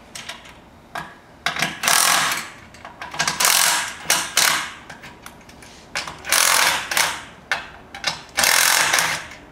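Cordless power driver spinning out the bottom bolts of rail angle brackets on an aluminium deck rail, running in several short bursts of under a second each with pauses between, a rattling mechanical whir as each bolt is loosened.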